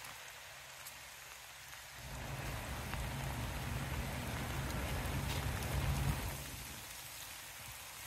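Steady rain falling on a wet path and fallen leaves. About two seconds in it swells into a louder, deeper rush, which drops away again after about six seconds.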